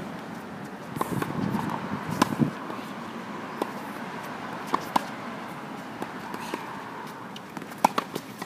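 Tennis ball being hit with a racket and bouncing on a hard court: sharp pops every second or so, the loudest about two, five and eight seconds in, with footsteps on the court.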